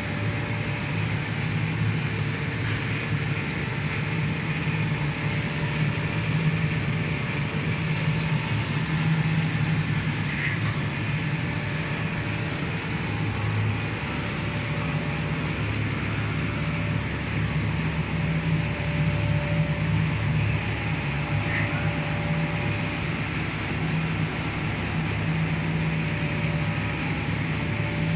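Five-layer co-extrusion cast stretch film line running at speed: its motors, rollers and winder make a steady, even machine noise with a strong low hum.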